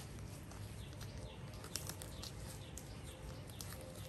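Rustling and crinkling of a disposable diaper being fastened around a baby macaque, with scattered sharp crackles over a low steady rumble.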